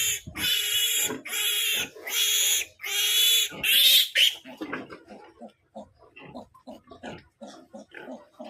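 Newborn piglet squealing, about five loud, long shrill screams in the first four seconds, then quieter short grunts and squeaks. It is the distress squeal of a three-day-old piglet held for processing (teeth clipping, injection, tail docking).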